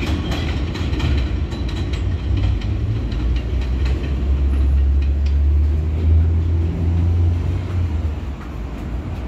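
New York City Subway train running on the rails: clicks from the wheels over rail joints in the first couple of seconds die away, under a steady low rumble that is loudest in the middle.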